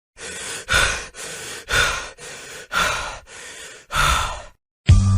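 A person breathing heavily in and out, about one breath a second, four times over.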